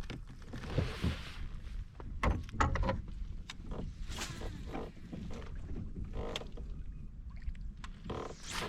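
Fishing kayak under way on a lake: water splashing and lapping against the plastic hull, with scattered knocks and clicks from the boat and gear over a low steady rumble.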